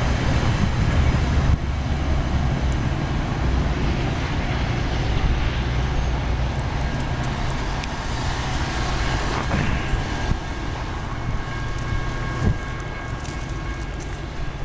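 Metra commuter train's diesel locomotive running steadily with a low engine drone, easing slightly in level, with wind on the microphone.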